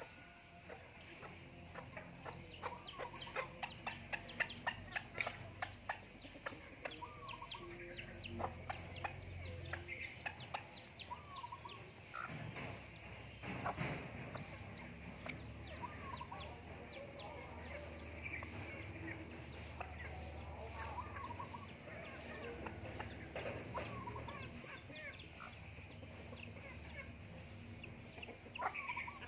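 Chicks peeping in a steady run of short, high, falling peeps, about two or three a second, while a hen gives low clucks now and then. Sharp clicks stand out during the first several seconds.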